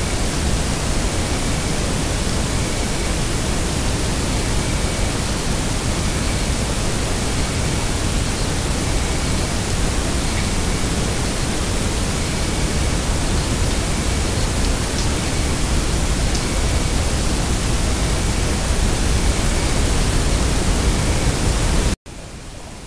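Loud, steady hiss from a trail camera's microphone and recording electronics, with faint short high chirps every second or two. Near the end it cuts off abruptly to a quieter hiss.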